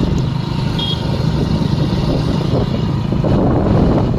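Motorcycle riding along at a steady pace, its engine running under a low, even rumble of wind buffeting the microphone.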